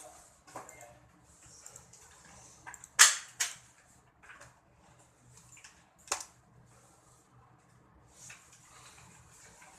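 A few sharp knocks over a faint hiss: a loud one about three seconds in, another just after it, and a third about six seconds in.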